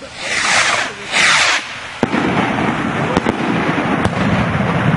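Aerial fireworks going off. Two hissing whooshes of shots lifting off come in the first second and a half. About two seconds in, a sudden bang opens a loud, sustained noisy rumble with a couple of sharp pops in it.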